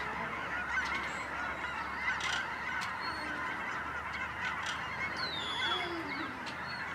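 Dense, continuous chorus of a large flock of birds all calling at once, with a few higher calls standing out.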